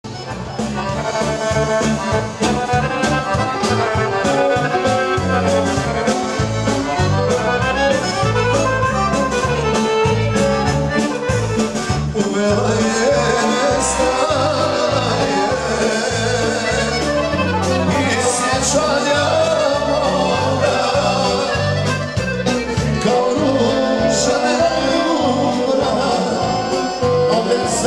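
Accordion-led band music with a steady, regular bass beat and a voice singing over it.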